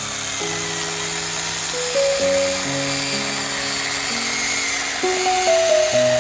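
Background music of held chords changing about every second, over a steady high-pitched whine or hiss from a power tool.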